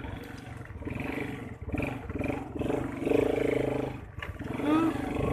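ATV engine running while the quad is ridden, its level rising and falling with the throttle.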